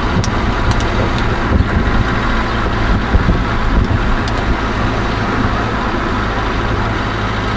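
Steady road noise of a car in motion, heard from inside: a low engine hum under a constant rush of tyre and wind noise.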